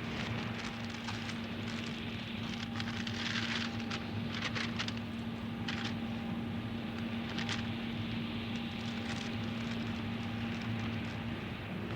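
A steady low mechanical hum under a noisy haze, with irregular crackles and clicks scattered through it, thickest a few seconds in.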